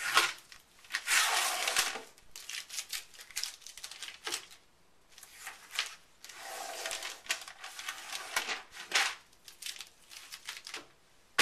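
Blue painter's tape being peeled off the edges of a Cricut cutting mat: a series of raspy tearing rips of differing length, the longest about a second in and again around the middle.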